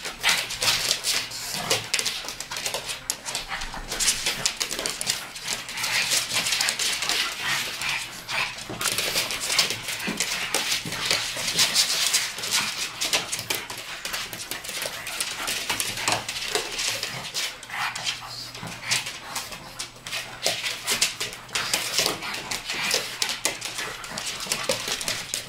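Two pugs and a fox terrier play-fighting, with dog vocal sounds and the scuffle of their bodies and paws going on unevenly throughout.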